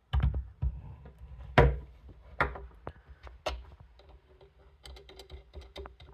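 Hard plastic knocks and clicks as a twin USB socket is handled and pushed into a car's cigarette-lighter housing, the loudest about a second and a half in. From about five seconds, a run of quick light clicks as its threaded retaining collar is screwed down.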